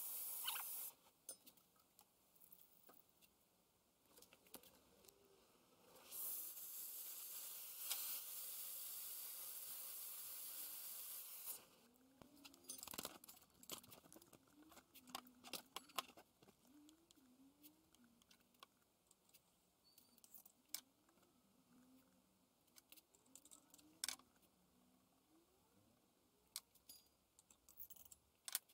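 Mostly quiet: a short hiss stops about a second in, a steady hiss runs for about five seconds in the middle, and scattered light clicks and taps follow in the second half.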